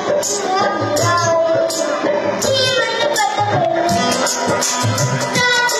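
A child's singing voice carrying a melody over loud backing music with a steady drum beat and tambourine-like percussion.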